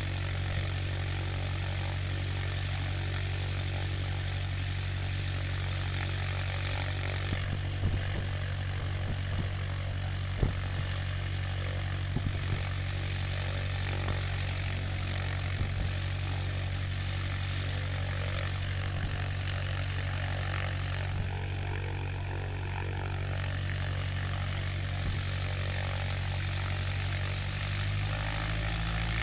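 Aircraft piston engine on a propeller test stand, running steadily, with a few light knocks over it. Near the end it speeds up, its pitch and loudness rising.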